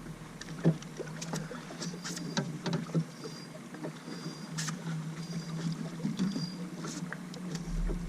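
Scattered clicks and knocks of gear being handled in a fishing boat, over a steady low hum, with a few short high-pitched chirps in the middle.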